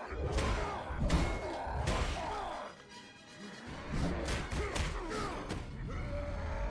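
Cartoon fight soundtrack: action music under a series of heavy impact thuds and crashes, with a quick run of hits about four to five seconds in.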